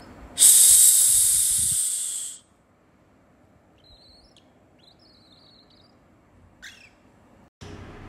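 Young cockatiel giving a loud, high hiss lasting about two seconds, the defensive warning hiss of an alarmed cockatiel. A few faint soft chirps follow, then one short call near the end.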